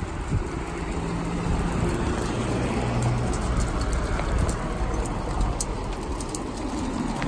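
Small hail and rain pattering on the pavement and road, with many sharp little ticks, over the low hum of passing traffic.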